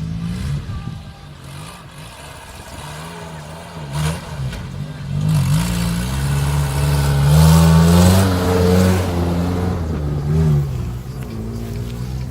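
Suzuki Samurai's 1.3-litre four-cylinder engine revving up and down as the off-road vehicle works through a trial course, with its loudest, longest rev about two-thirds of the way through. A single knock about four seconds in.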